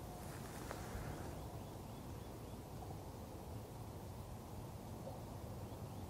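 Faint outdoor ambience: a steady low rumble with a light hiss, and a single short click just under a second in.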